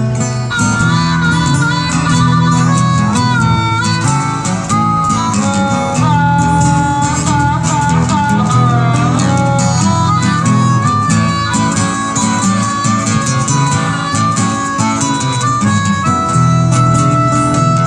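Harmonica playing a solo line with bent notes over strummed acoustic guitars.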